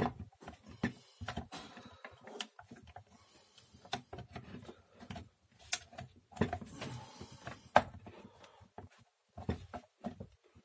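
Irregular small clicks and knocks, with a few brief scrapes, as the metal belt tensioner plate and its spring are worked back into the plastic housing of a Skil 7600 belt sander by hand.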